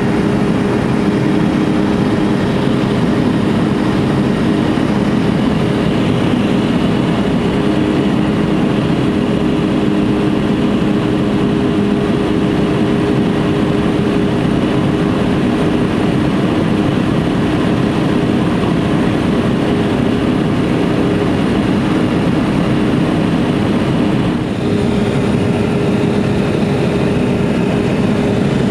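Pilatus Porter's engine and propeller running steadily in cruise flight, heard from inside the cabin as a loud, even drone with several held tones.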